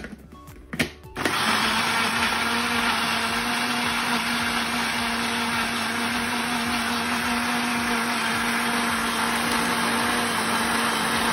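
A couple of knocks as the blender lid is pressed down, then about a second in a countertop blender switches on and runs steadily at one speed, with a constant low motor tone, blending onion, green chilli and water into green curry paste.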